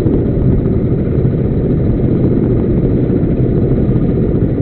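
Fishing boat's engine running steadily, loud and low-pitched.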